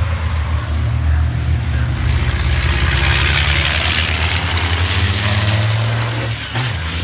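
Racing truck's turbocharged diesel engine running hard as the truck passes close by, a deep steady engine note under a rushing hiss that swells about three to four seconds in. The engine note drops out briefly near the end.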